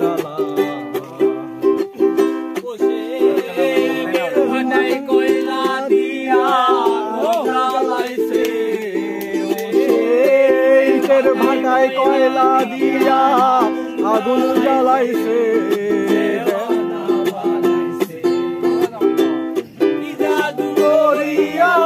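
Ukulele strummed in a steady rhythm, with a man singing along.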